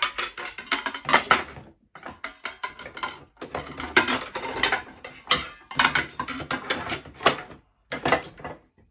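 Hard kitchenware clattering and clinking as it is handled and packed into a box, a dense run of sharp knocks with a few short pauses.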